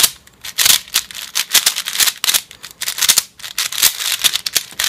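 A Cyclone Boys 4x4 G4 plastic speed cube having its layers turned quickly by hand: runs of rapid clicking, rattling clacks with a couple of brief pauses.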